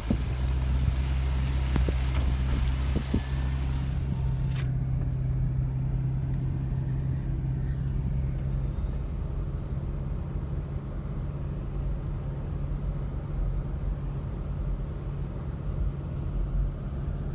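Car engine and road noise heard from inside the cabin while driving, a steady low drone. A hiss of air runs over it and cuts off suddenly about four and a half seconds in, with a few light clicks before that.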